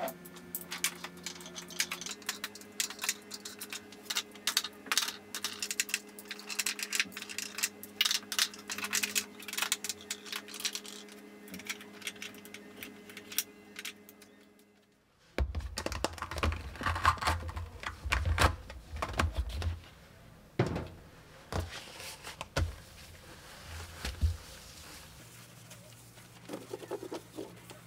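Small gel polish bottles clicking and clinking as they are picked up and set back down on shelves, many light taps in quick succession over a faint steady hum. About halfway through this gives way to dull thumps and clatter of things being handled.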